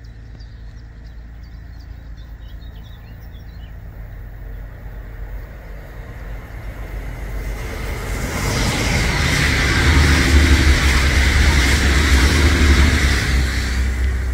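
A train passing: a deep rumble and rushing noise build from about halfway in, are loudest for a few seconds near the end, then begin to ease. Faint bird chirps in the quieter first part.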